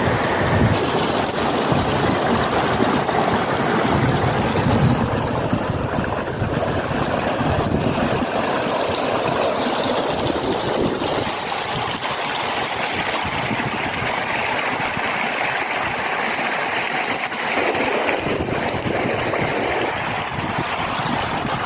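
Oker river water rushing and splashing down the steps of a fish ladder, a steady hiss. Wind buffets the microphone through roughly the first half.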